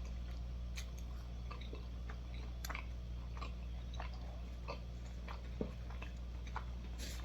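Close-up chewing of a soft, bready Crazy Puff with a mac and cheese filling: scattered faint mouth clicks and smacks, a few a second, over a steady low hum.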